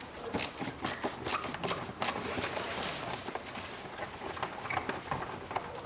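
Irregular clicks and light knocks of hand-tool work on a hose clamp holding the plastic air intake duct, as the clamp is loosened and the duct handled.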